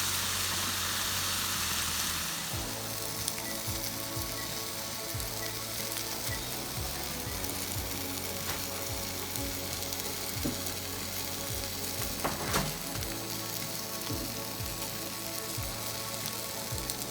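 Thin, pounded chicken breasts sizzling on an oiled stovetop grill. The sizzle is louder for the first couple of seconds, then settles to a steady hiss with a few light clicks.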